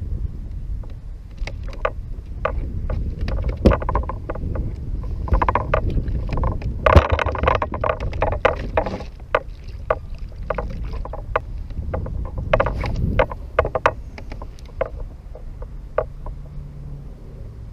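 Gear knocking and clicking against a fishing kayak, many short sharp knocks over a steady low rumble of wind and water, with a louder, busier stretch of handling noise in the middle.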